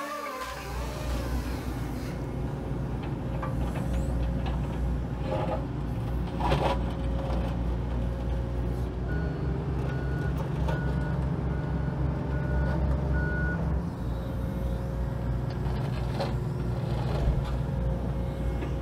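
John Deere 135G excavator's diesel engine running steadily as the machine travels, with a couple of sharp clanks around five and six seconds in. About nine seconds in, its travel alarm beeps six times, evenly spaced.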